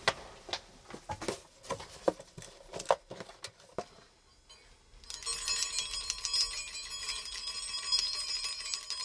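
A few scattered knocks and rustles, then about five seconds in a shrill, rapidly fluttering bell-like ringing starts and keeps going.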